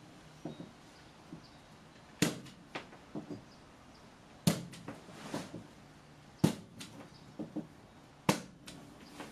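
Nails being driven into thin wall paneling: four sharp strikes about two seconds apart, with lighter knocks and taps between them.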